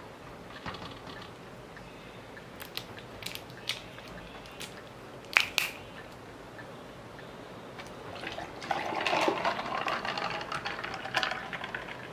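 A few sharp clicks, then coffee pouring into a plastic tumbler for about four seconds near the end.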